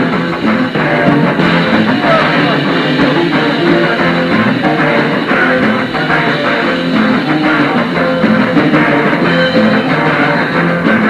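Late-1970s rock band playing live: electric guitars over bass and drums, loud and steady throughout.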